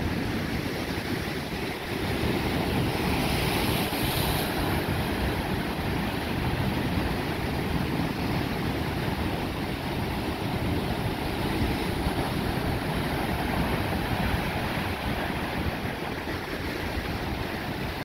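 Ocean surf breaking and washing over sandstone rocks, a steady rushing of waves and foam, with a brighter hiss of spray about three to four seconds in.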